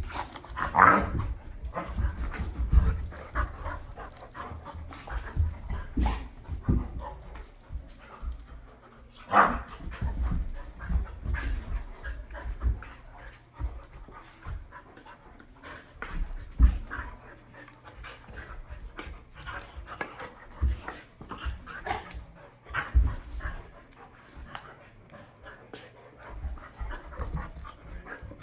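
Two dogs play-fighting: irregular scuffling and thuds with short bursts of dog vocal sounds, the clearest about a second in and again about nine seconds in.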